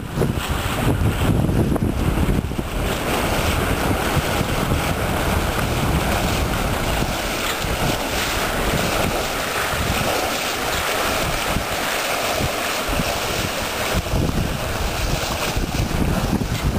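Wind buffeting the microphone in gusts over the rush of water along the hull and wake of a sailboat under way.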